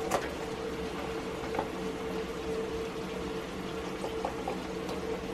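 Butter-and-flour roux sizzling steadily in a cast iron skillet over an electric coil burner, with a steady low hum beneath it. A few faint clicks come as a carton's plastic cap is twisted open.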